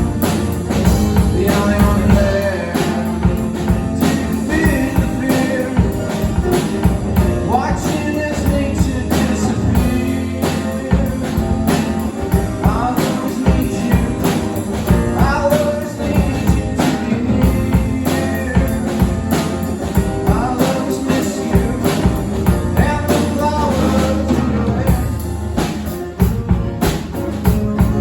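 Live rock performance by a guitar-and-drums duo: guitar and a drum kit played together, with a sung vocal line over them.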